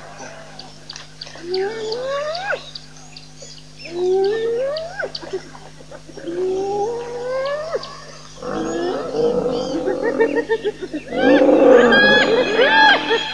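Spotted hyenas whooping: three separate calls that each rise in pitch, about two seconds apart. Then, from about eight seconds in, a louder tangle of overlapping hyena yells and chattering calls, loudest near the end.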